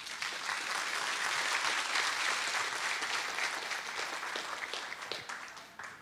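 Audience applauding at the end of a talk, starting at once and tapering off near the end.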